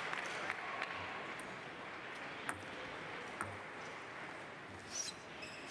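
Applause from an arena crowd dying away into the hall's background hubbub, broken by a few isolated sharp clicks.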